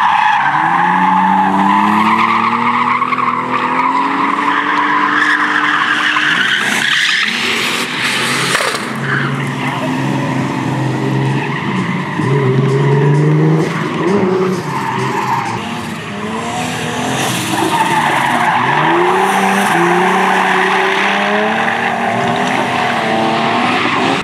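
Drift cars sliding with their tyres squealing almost without a break, while the engines rev up and down, the pitch climbing and dropping back several times.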